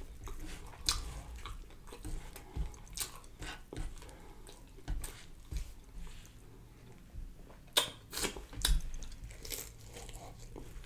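Fried catfish fillet being pulled apart by hand, its crisp breading giving scattered small crackles and crunches, the two sharpest about eight seconds in. Chewing near the end as a piece goes into the mouth.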